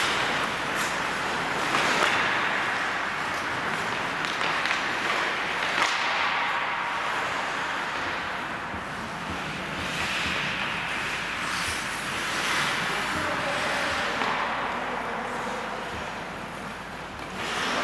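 Ice hockey play: skate blades scraping and hissing on the ice in repeated swells, with scattered sharp clicks of sticks and puck.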